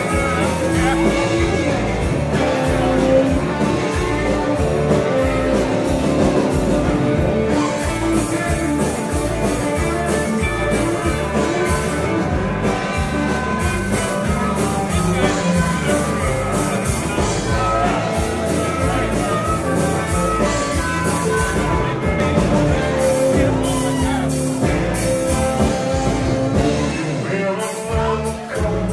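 Live outlaw country band playing amplified, with a singer, guitar and a steady beat; the music dips briefly near the end.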